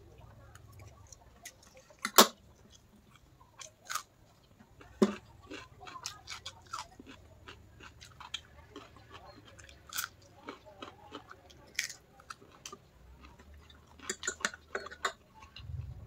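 Close-up chewing of a mouthful of noodles, with scattered sharp clicks and clinks of a fork and spoon against the plate, the loudest about two seconds in and again about five seconds in.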